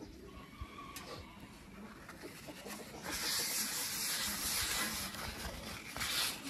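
Cooking oil hissing on a hot Blackstone griddle top as it is wiped around with a paper towel to season the surface. Faint at first; a steady hiss sets in about three seconds in.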